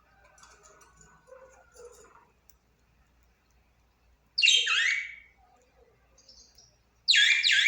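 Budgerigar calling: soft chatter over the first two seconds, then two short, loud calls, one about halfway through and one near the end.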